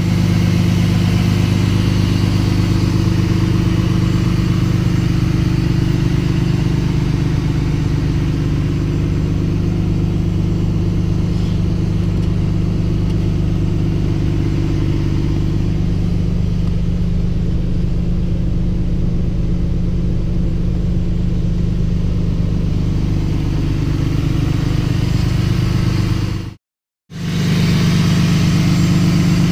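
6.7-litre Cummins turbo-diesel in a Dodge Ram 2500 idling steadily through a 4-inch exhaust: an even, low engine drone. It cuts out briefly near the end.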